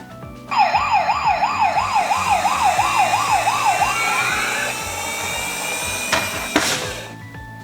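Electronic ambulance-style siren in a rapid rising-and-falling yelp, about two to three sweeps a second. It glides down and fades about four seconds in. A short whoosh follows near the end.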